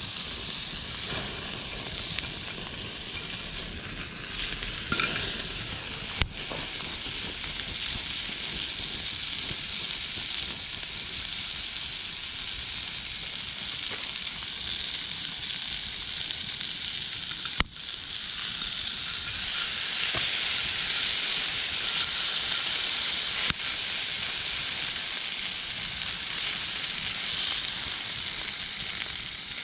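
Formed meat sizzling hard over a campfire: the heat is too high and the meat is burning. A steady high sizzle, a little louder in the second half, with a few sharp pops.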